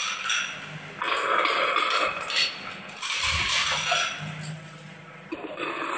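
Marbles rolling and clacking along a HABA wooden marble run. The rolling comes in runs of a second or two, with sharp clacks between them.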